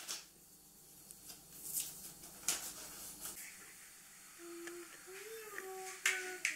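A metal measuring cup scooping into a tub of flour and tipping flour into a glass jar of sourdough starter: soft scraping and crunching of the flour, with a few sharp taps of metal. About two-thirds of the way in, a soft wavering melody comes in.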